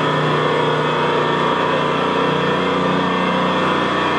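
Diesel generator running, a loud, even machine drone with a steady hum that does not change.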